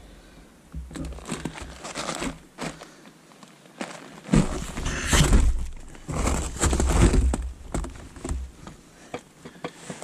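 Rustling, crinkling handling noise close to the microphone as ballistic gelatin blocks are shifted and set down on a table by hand, a camouflage jacket sleeve brushing near the camera. Irregular, with heavier low thumping bumps in the middle stretch.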